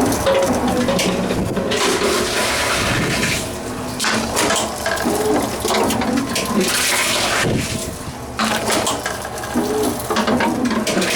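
Tomra Tx2 reverse vending machine taking in empty containers: a steady mechanical rush with several louder rushing, clattering surges a couple of seconds apart as each container is fed in and carried off.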